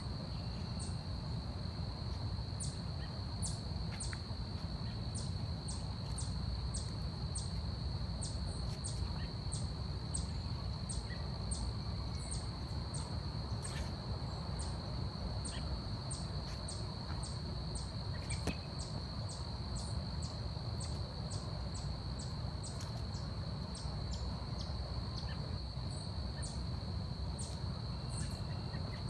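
Forest insects: a steady high-pitched drone, with short high chirps repeating about twice a second, irregularly, over a low background rumble.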